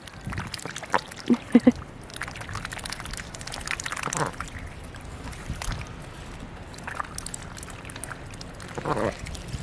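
Ducks dabbling with their bills in a pool of icy slush: irregular crackling and sloshing of broken ice and water. A couple of short low calls come about a second in and near the end.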